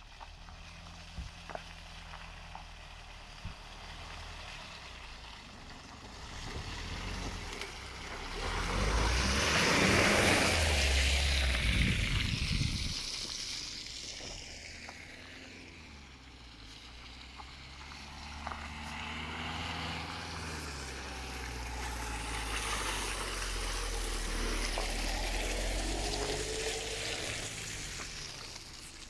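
Land Rover Freelander 2 and Mitsubishi Shogun Sport diesel 4x4s on street tyres driving one after the other up a muddy track. The first passes close and loud from about eight to thirteen seconds in, with a rush of tyre and mud noise over its engine. The second follows later, its engine revs rising and falling as it climbs.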